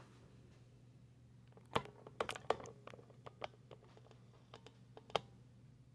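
Small sharp clicks and taps of a die-cast Hot Wheels toy truck being handled in the fingers: a quick cluster about two seconds in and a single click near the end, over a low steady hum.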